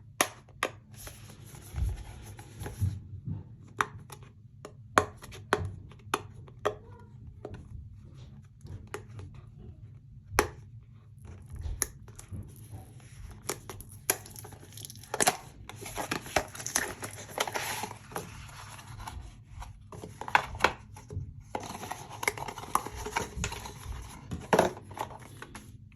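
Product packaging being opened by hand: irregular clicks and taps, with stretches of tearing and crinkling.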